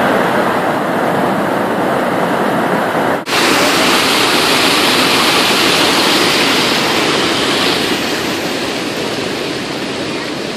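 Muddy floodwater rushing loudly in a creek in flood, a steady whitewater rush. About three seconds in it breaks off at a cut and resumes brighter and hissier.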